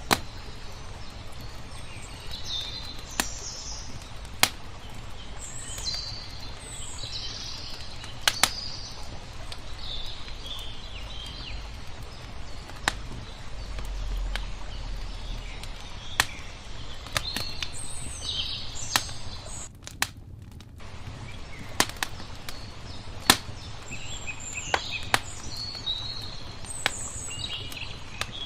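Wood fire crackling, with sharp pops every few seconds, while small birds chirp throughout over a low, steady wash of lake water.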